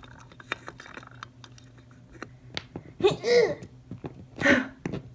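Faint clicks and taps of small plastic toys being handled against a toy sink's miniature pipe, then two short wordless vocal sounds about three and four and a half seconds in.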